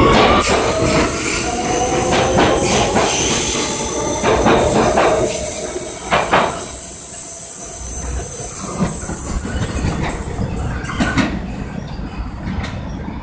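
R160 subway train with Siemens propulsion accelerating away from the platform: a rising motor whine near the start over the steady running noise, and wheels clicking over rail joints as the cars pass. The sound fades quickly after about ten seconds as the last car pulls away.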